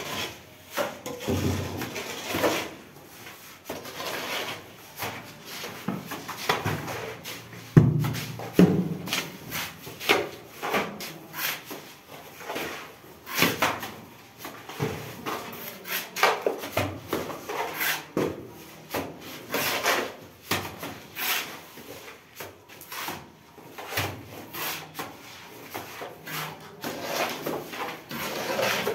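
Irregular scrapes and knocks of hand plastering: cement mortar stirred and scooped in metal pans, and a trowel throwing mortar onto a brick wall.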